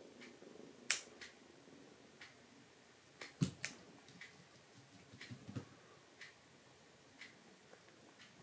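Scissor-type pet nail clippers snipping a kitten's claws: two sharp clicks, about a second in and near the middle, with soft handling bumps around them. Faint, regular ticking about once a second sits underneath.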